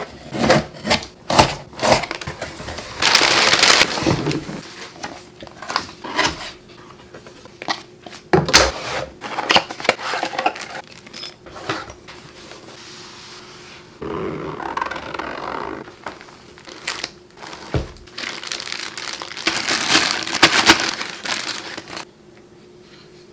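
Close-up unboxing handling sounds: packing tape on a cardboard box being slit, then cardboard, paper and a padded lens case being opened and handled, and the lens lifted out. Sharp clicks and taps mixed with longer scraping, rustling stretches, the loudest a few seconds in and again near the end.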